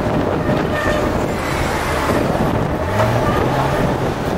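Street traffic with a double-decker bus and a Hong Kong double-decker tram passing close, played back at double speed: a steady, dense noise with a low hum in the middle.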